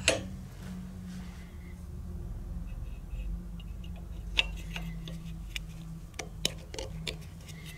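A sharp metal clunk as the bench vise is tightened, then a scatter of small metal clicks and clinks as the Velosolex rear drum-brake shoes and their coil springs are worked onto the brake plate, over a low steady hum.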